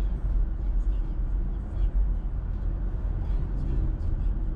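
Car driving along a city street: a steady low rumble of road and engine noise.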